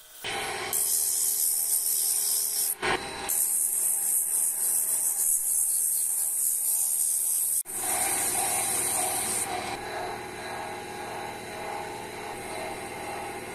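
Sandpaper hissing against a small wooden spindle piece spinning on a wood lathe, with a short break about three seconds in. After about nine seconds it gives way to a softer, duller rubbing as the hand works the spinning piece.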